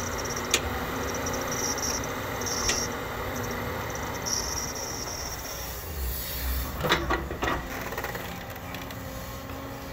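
JCB crawler excavator working, its diesel engine running steadily with a low rumble. About seven seconds in, a quick cluster of sharp knocks as the bucket is lowered to dig into the sand.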